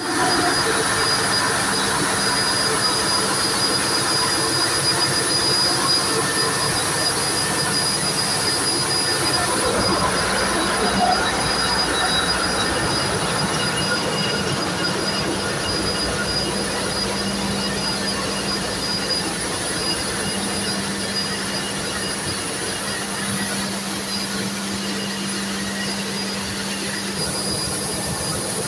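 Ship's engine-room machinery running: a loud, steady, continuous din with a low hum and thin high whines over it, unchanging throughout.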